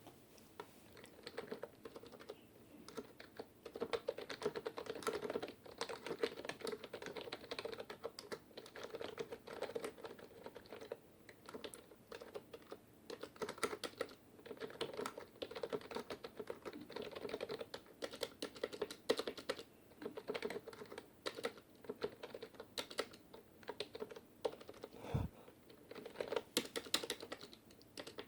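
Fast typing on a TG Sambo TG-K7000 gaming keyboard: a quick, uneven run of key clicks with short pauses, starting about a second in.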